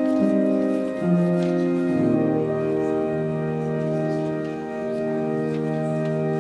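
Organ playing slow, sustained chords that change a few times, then holds a final chord that is released at the very end.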